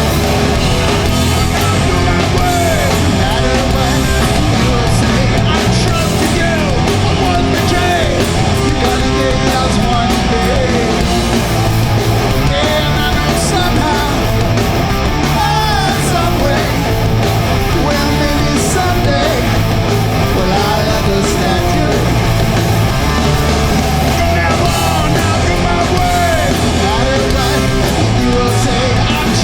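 Hardcore punk band playing live, with distorted electric guitars, bass, drums and a singer's vocals over them.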